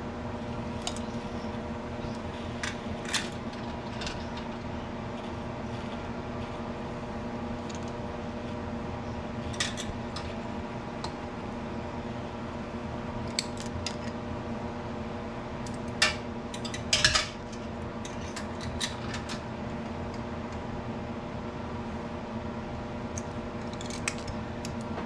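Pint glass canning jars of peaches being lifted out of a water-bath canner with a wire jar lifter and set down on the counter: scattered clinks and knocks of metal on glass, the loudest pair about two-thirds of the way through, over a steady hum.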